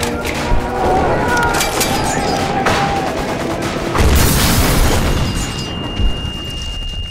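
Film battle soundtrack: gunfire and explosions over music, with a loud blast about four seconds in. The din then thins out and a single steady high-pitched ringing tone takes over, the usual film effect for ears ringing after a blast.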